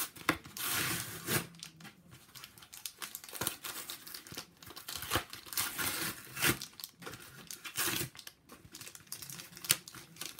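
Packaging of a Pokémon card Ultra Prism triple pack being torn open: plastic crinkling and rustling, with several brief louder tears.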